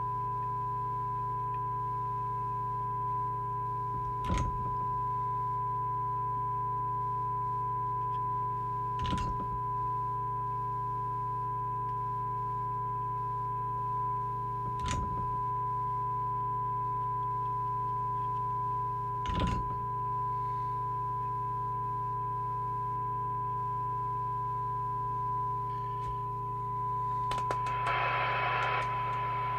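Steady 1 kHz test tone received by a Moonraker Minor II CB radio and played through its speaker during receiver alignment, over a low steady hum. A faint click comes about every five seconds, and a burst of hiss rises near the end.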